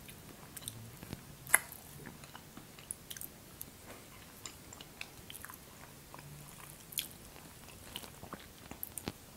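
Close-miked chewing and mouth sounds of someone eating soft cake with a fork, with scattered sharp clicks, the loudest about a second and a half in and again about seven seconds in.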